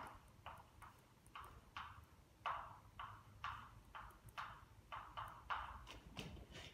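Chalk writing on a blackboard: a faint, uneven run of short taps and brief scratches, about two a second, as each symbol is struck onto the board.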